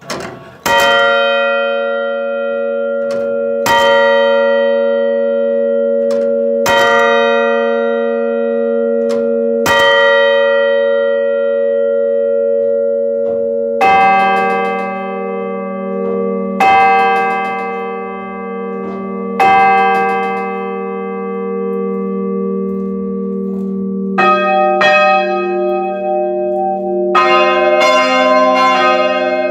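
Swinging bronze church bells ringing in the belfry, heard close up. At first a single bell strikes about every three seconds with a long ringing hum. About halfway through a deeper bell joins, and near the end further bells come in one after another, building toward the full five-bell peal.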